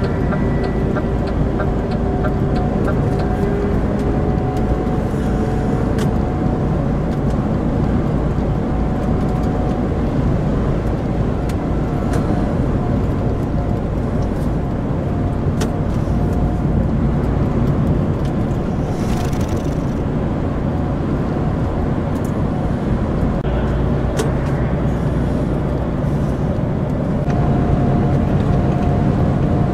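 Lorry cab interior on the motorway: steady engine drone and road rumble at cruising speed, with a faint steady tone above it.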